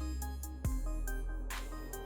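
Electronic background music: short synth notes over a heavy bass and a steady beat.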